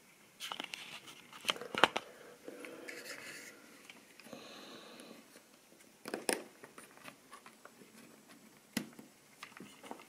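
Plastic model railway wagons being handled on the track by hand: a few sharp clicks and knocks as the wagons and their couplings are moved, the loudest about two seconds in, with light scraping and rustling between.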